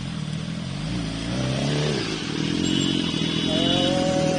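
Superbike engines idling with a steady low hum. One is blipped about a second and a half in, its pitch rising and falling, and another rising engine note comes near the end.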